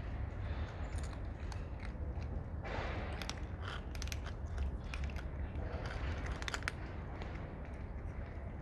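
Cats eating, with scattered short crunches and clicks over a steady low rumble.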